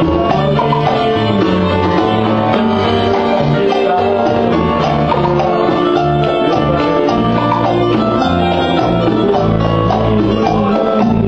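Live Latin band playing, with plucked guitars over a steady walking bass line.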